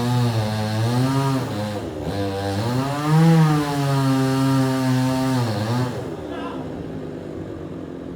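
Two-stroke chainsaw engine running under throttle, its pitch dipping and recovering as the chain loads in the wood. About six seconds in, the revs drop away and it falls quiet.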